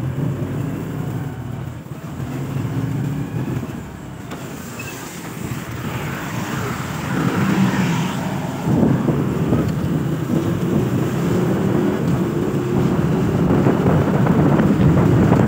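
Motorcycle running along the road, steady engine noise mixed with wind rush on the microphone, getting louder about halfway through.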